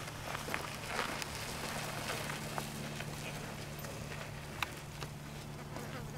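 Footsteps crunching on loose desert gravel: light, irregular clicks and crackle over a faint steady low hum.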